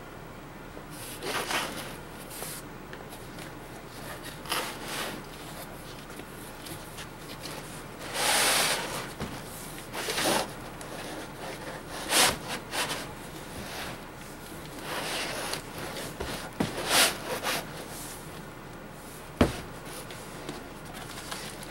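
Long cardboard shipping box being handled and its flaps worked open: scattered scrapes and rubs of cardboard, with a sharp knock near the end.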